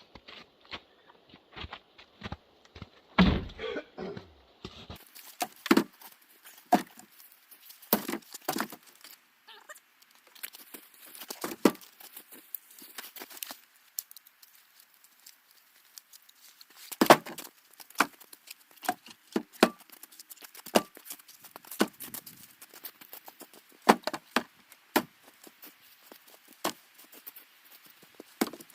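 Irregular crunching steps and rustling handling noises, with louder knocks about 3 and 17 seconds in; no saw is running.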